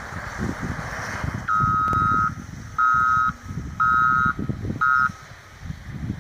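Snowplow wheel loader's backup alarm beeping four times, the last beep short, over low gusty wind rumble on the microphone.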